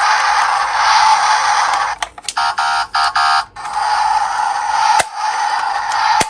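Toy jeep's electronic sound effects through its small speaker: a steady buzzy hiss, broken about two seconds in by a quick run of electronic beeps, then the hiss again with a couple of clicks.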